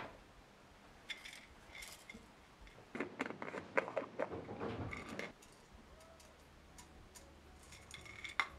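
A sharp knock at the very start as a metal moka pot is set down on a marble tabletop, then a plastic pill bottle being handled: a run of clicks and rattles as its screw cap is twisted off, and a single click near the end as a pill is tipped out into a hand.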